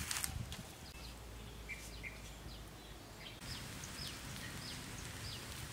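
Outdoor ambience with a bird giving short, falling chirps, about two or three a second after a few seconds, over a steady background hiss. A brief crackle comes right at the start.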